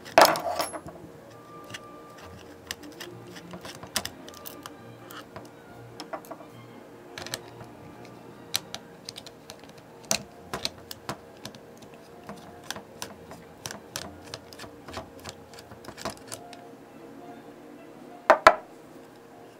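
Small irregular clicks and metallic taps of a nut driver turning nuts off the sheet-metal chassis of a cassette deck mechanism, with a louder clack at the very start and another near the end.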